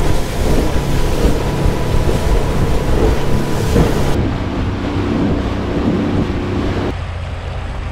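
Aluminium boat running at speed under an outboard motor: the engine's steady drone under a rush of wind on the microphone and spray off the hull. The rush thins out abruptly about four seconds in and again about a second before the end.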